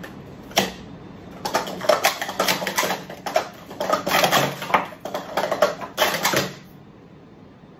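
Plastic sport-stacking cups (Speed Stacks) clattering in a fast run of clicks as they are upstacked and downstacked through a cycle stack: 3-6-3, then 6-6, then 1-10-1. The clatter stops abruptly after about six seconds.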